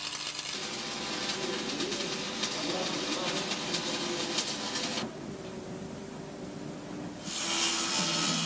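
Stick (arc) welding: the steady crackling hiss of the welding arc, which cuts off about five seconds in. A similar hiss returns near the end.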